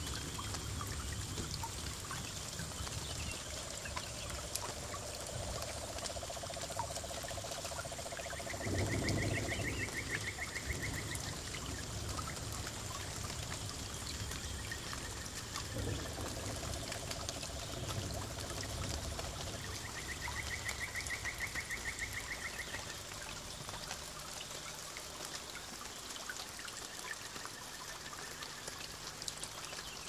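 Small paludarium waterfall trickling and splashing steadily. Several faint pulsed trills, each a few seconds long, come and go over it, and a short low rumble sounds about nine seconds in.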